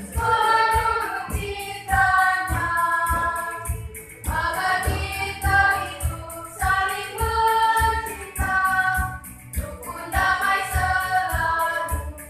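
Mixed choir of students singing a song together, in held phrases of about two seconds with short breaks between them.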